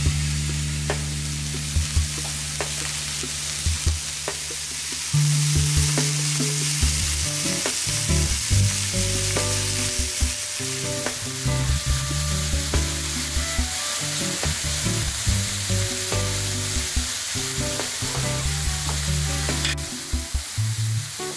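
Beef steaks searing on an electric tabletop grill plate: a steady sizzle of meat and fat frying. Light background music with low plucked notes plays beneath it.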